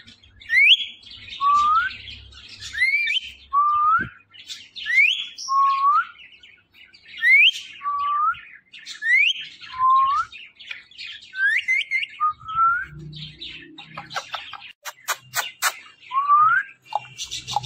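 Rose-ringed (Indian ringneck) parakeet giving a series of short rising whistled calls, about one a second. The calls pause near the end for a quick run of sharp clicks, then one more call follows.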